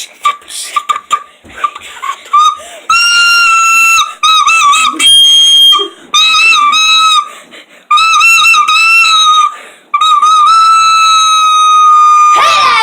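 Small flute-type wind instrument played shrilly around one high note. First come a few short chirps, then held, wavering notes in phrases of a second or two. The last note is long and sags slightly in pitch, and a quick swooping figure follows right at the end.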